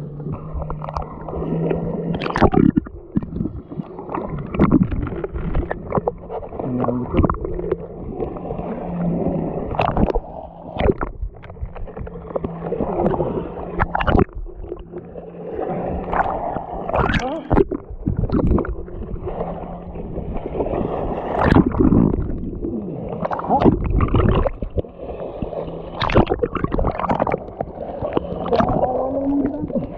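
Sea water sloshing and splashing around a GoPro camera, with frequent sharp knocks and a steady low hum underneath.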